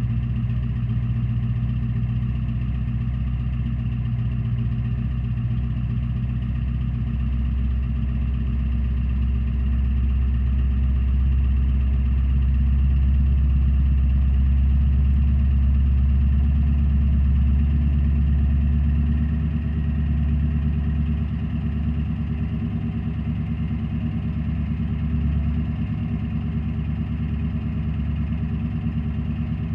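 Ford E350's 7.3-litre Power Stroke V8 turbo-diesel running at idle, heard at the rear by its dual 5-inch exhaust outlets: a steady, deep drone. About two-thirds of the way through the lowest part of the drone drops away a little, and the engine settles slightly quieter.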